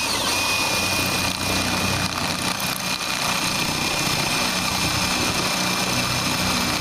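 Electric drill running at a steady speed, its masonry bit grinding into a stucco wall, with a steady high whine over the grinding.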